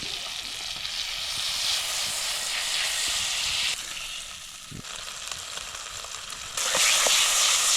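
Pork sizzling as it fries over a campfire: a steady hiss that dips about four seconds in and comes back louder near the end.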